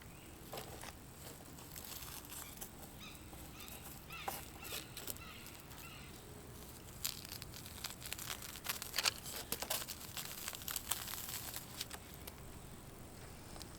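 Faint rustling, crinkling and scraping of old nest debris and paper wrappers being pulled out of an open wall cavity, with scattered small clicks that bunch up about seven to eleven seconds in.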